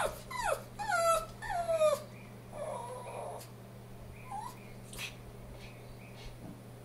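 A pug yipping and whining excitedly, a quick run of about four short cries that fall in pitch over the first two seconds, then quieter with one more brief cry.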